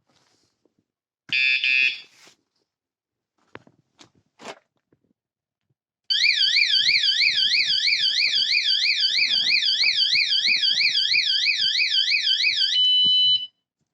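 Bicycle alarm tail light sounding: a short high beeping chirp, a few faint clicks, then its alarm siren, a loud fast warbling tone sweeping up and down about four times a second for around seven seconds, ending on a brief steady tone.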